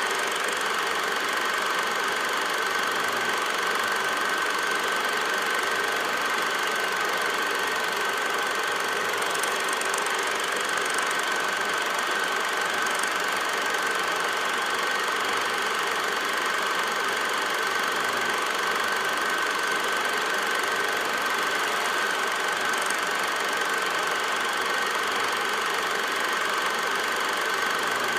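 Steady mechanical running noise: an even hiss with a constant high whine, unchanged throughout.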